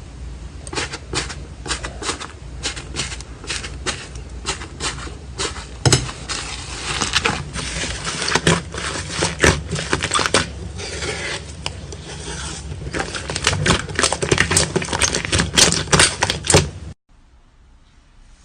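Slime being played with, giving a dense, irregular run of sticky clicks and pops that stops abruptly near the end.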